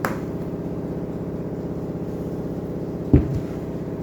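Washing machine running with a steady hum, joined about three seconds in by a single low thump.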